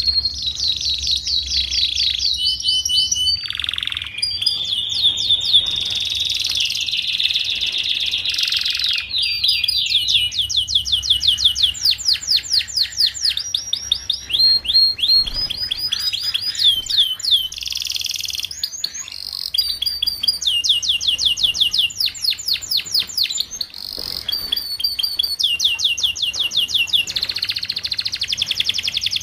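Domestic canary singing a long, continuous song of fast trills and rapidly repeated high notes, in phrases with brief breaks between them.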